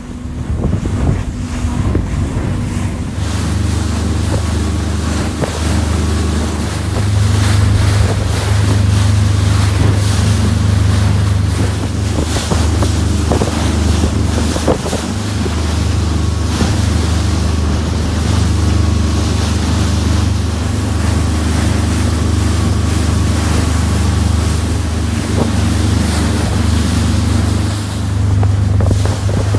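Motorboat under way through choppy sea: a steady low engine drone that grows louder a few seconds in, with water rushing past the hull and wind buffeting the microphone.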